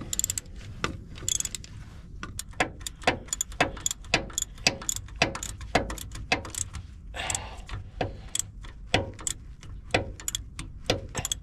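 Socket ratchet clicking in short, uneven strokes, with light metal clinks, as fasteners on a replacement starter motor are tightened.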